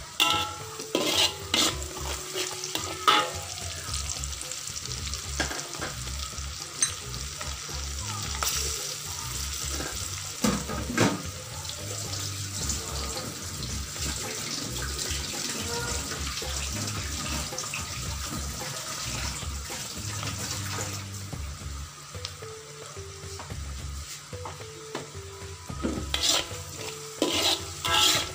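Oil sizzling and bubbling in a wok as the spice base for fried rice (onions, anchovies and pandan leaves) fries, with a metal spatula scraping and stirring against the wok, most busily at the start and near the end.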